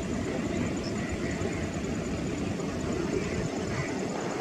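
Distant, steady low rumble of an Air India Airbus A321's jet engines as it turns onto the runway, with a few faint high chirps.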